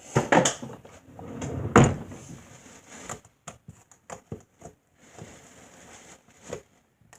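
Clicks and knocks of small objects being handled and set down. There is a loud knock just after the start and another about two seconds in, then scattered lighter clicks.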